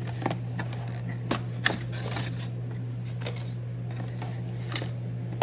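Cardboard gift box and vitamin bottles being handled as the bottles are lifted out: scattered clicks, knocks and rustles, with a longer rustle about two seconds in, over a steady low hum.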